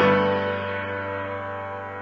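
Background music: a held chord that sounds at the start and slowly fades.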